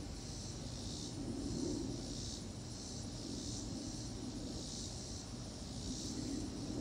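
Insects calling in a chorus of high, buzzing pulses that come about once a second, over a low steady background rumble.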